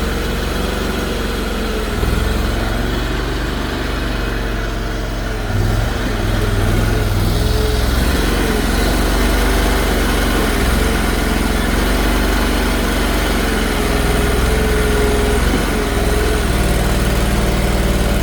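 Mini excavator running while digging a trench: a steady engine hum with a whine that rises and falls in pitch as the machine works.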